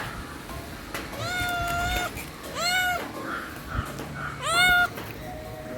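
Kitten meowing three times: a long, level high-pitched mew, then two shorter ones, the last rising sharply at its start.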